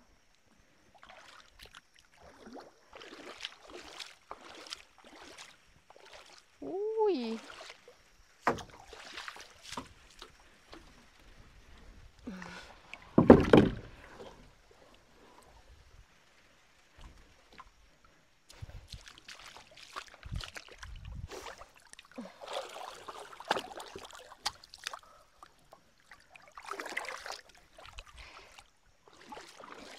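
Water sloshing and splashing in irregular bursts as a person wades through floodwater and pushes a floating wooden raft, with one heavy thump and splash about halfway through.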